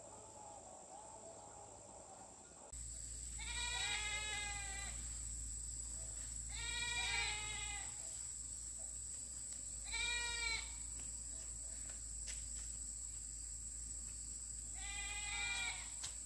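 A livestock animal bleating: four separate quavering calls, each about half a second to a second and a half long, a few seconds apart.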